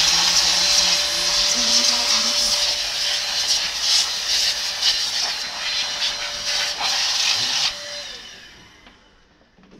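DataVac electric duster blowing air through a dusty computer power supply: a loud, steady rush of air over a constant motor whine. It is switched off about eight seconds in, and the whine slides down as it winds down.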